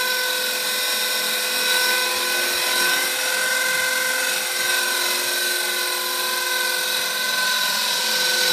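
HK 450 PRO TT electric 450-size RC helicopter in flight: its brushless motor and rotor head give a steady high-pitched whine in several tones that waver slightly in pitch.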